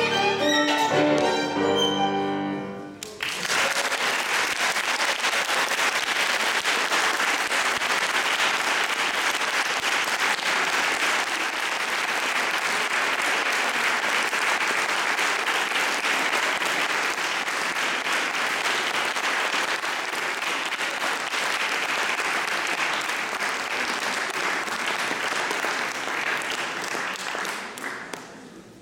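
Violin and piano play the final notes of a piece, ending about three seconds in, then a steady audience applause follows and fades out near the end.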